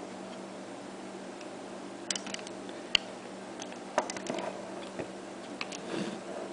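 Small, irregular metallic clicks and taps of a lock and lockpicking tools (tension wrench, lock pick gun) being handled, about a dozen over a few seconds with one sharper click near the middle, over a steady low hum.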